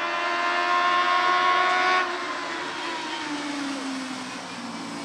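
1300 cc four-cylinder touring-car engines (Lada and Samara race cars) running at high revs, one note held steady and then dropping away suddenly about two seconds in. Lower engine notes follow, falling in pitch.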